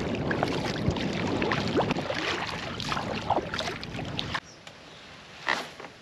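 Water and boat noise from a canoe or kayak on a river, with many small splashes and knocks. It drops sharply quieter about four seconds in, then one louder splash or knock comes near the end.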